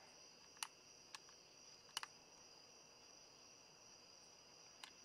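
Faint, steady high trilling of crickets in the night air, with a few light clicks, a double one about two seconds in.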